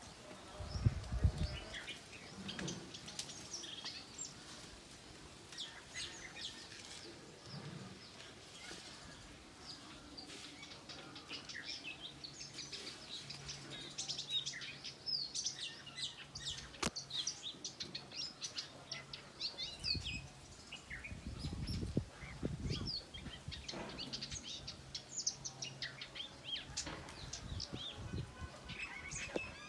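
Several small birds chirping and twittering in quick short calls throughout, with a few low rumbles near the start and again later on.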